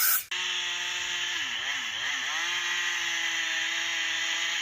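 Two-stroke chainsaw engine running fast and steady, its pitch dipping twice about a second and a half in before coming back up.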